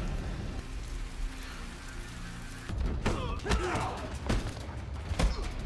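Fight-scene sound effects from a TV drama. A low drone, then from about halfway a run of sharp punch and body-hit impacts, about four, with grunts and shouts between them.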